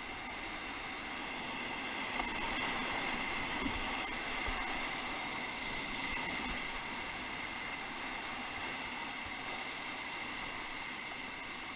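Whitewater rapid rushing and splashing around a raft running through it: a steady wash of churning river water, a little louder a few seconds in.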